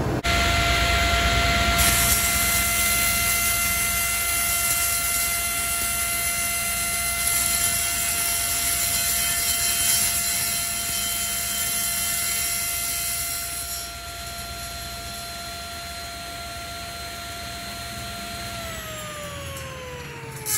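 Table saw running with a steady motor whine; from about 2 s to about 14 s its blade cuts through a brittle plastic light-diffuser sheet, adding a loud high hiss. About 18 s in the saw is switched off and the whine falls in pitch as the blade coasts down.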